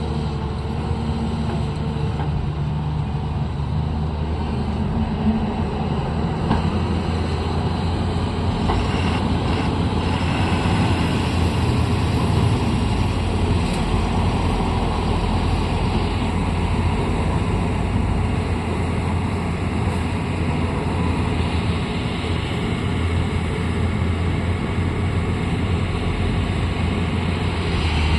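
Diesel engine of a working earthmoving machine, a backhoe loader or excavator, running steadily with a low rumble.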